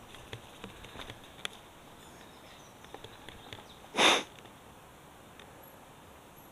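Mountain bike rolling over a dirt trail with scattered small clicks and rattles, then, about four seconds in, one short, loud sniff close to the microphone.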